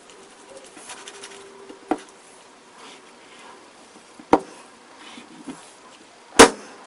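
Cleaver chopping through a cooked chicken quarter onto a plastic cutting board: three sharp chops about two seconds apart, the third the loudest, and another right at the end.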